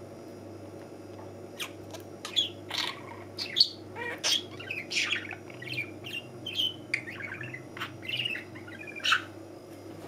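Budgerigar chattering close up: a run of short chirps and warbles that starts about a second and a half in and stops near the end.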